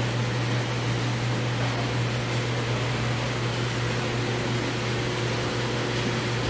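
Steady low machine hum under an even wash of air noise, the constant room tone of a large metal-walled store building.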